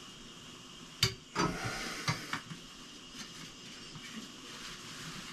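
Brass ball valve being pushed and turned onto the end of a copper pipe, metal on metal. There is a sharp click about a second in, then a short run of knocks and scrapes.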